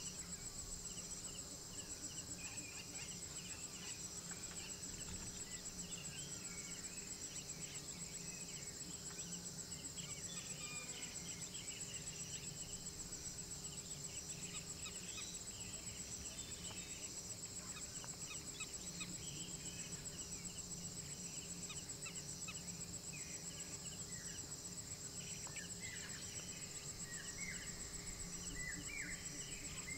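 Night-time forest insect chorus: crickets trilling in a steady, finely pulsing high-pitched drone, with many short chirping calls scattered over it that grow more frequent near the end, where they become quick falling calls.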